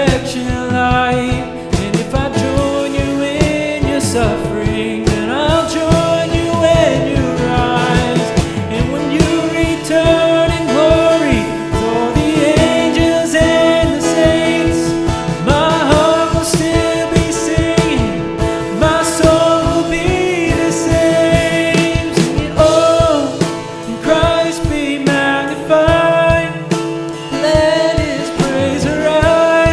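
Live worship band music with singing, held steady tones under a moving vocal line and a regular beat.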